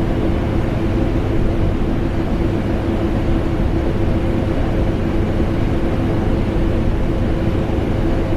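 Vacuum cleaner running steadily together with air-conditioner noise: an unchanging rush of air with a constant low hum tone through it.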